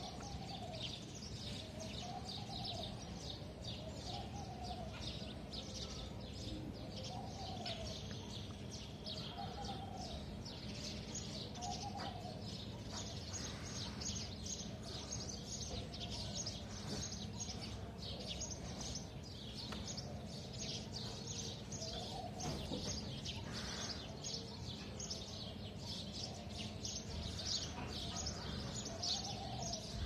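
Many birds chirping in quick, dense high-pitched notes, with a softer, lower rising-and-falling call repeating every second or two, over a steady low background hum.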